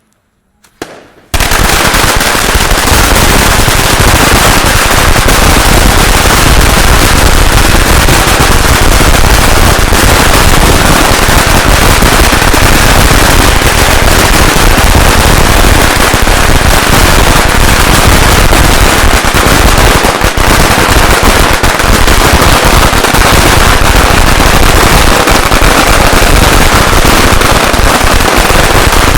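A 3000-shot firecracker string going off: a few faint pops, then about a second in an unbroken, very loud, dense rattle of rapid cracks that does not let up.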